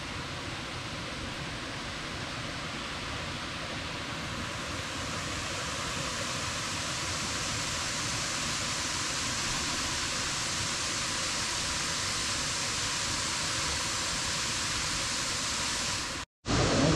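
Steady rushing of falling water, a waterfall's continuous roar that grows brighter and a little louder about five seconds in, then cuts off abruptly just before the end.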